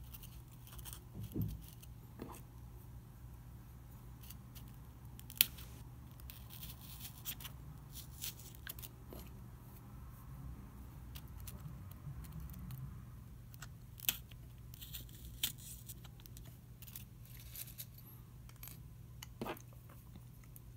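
Scattered small clicks, ticks and light rustling from handling pins and paper strips on a Styrofoam spreading board, with a few sharper clicks, the loudest about five seconds in. A faint, steady low hum runs underneath.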